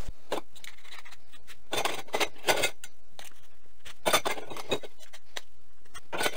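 Metal enclosure-frame tubes clinking and scraping against one another as they are picked up and laid down by gloved hands, in several short clusters of clinks.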